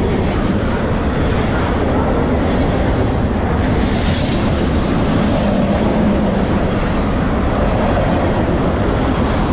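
Freight cars of a long manifest train rolling past at close range: a steady heavy rumble of steel wheels on rail, with a few clicks over the rail joints. A thin, high wheel squeal comes in about halfway through.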